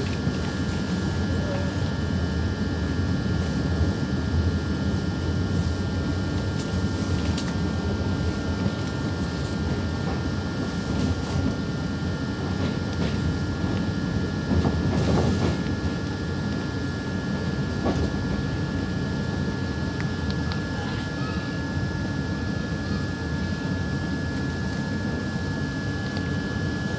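Inside an electric multiple-unit commuter train leaving the station: a steady low running rumble with a thin, high steady whine over it, and a few light clicks and a brief swell about halfway through.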